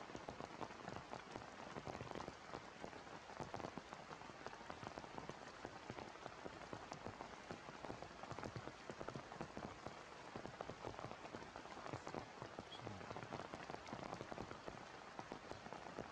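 Heavy rain falling steadily, with many close drops heard as fine ticks.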